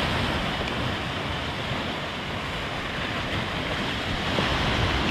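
Sea waves washing onto the shore, with wind, a steady rushing noise that gently swells and eases.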